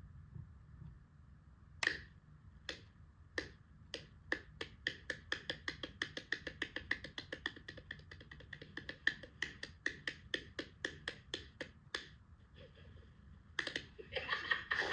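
A run of sharp clicks, a few slow ones at first, quickening to about four a second, then slowing and stopping shortly before the end.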